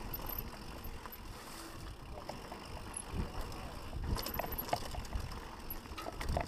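Mountain bike descending a dirt singletrack: tyres rolling over the dirt and the bike rattling and knocking over bumps, thickest about four to five seconds in and again near the end. A steady low rumble, wind on the microphone from the riding speed, sits under it.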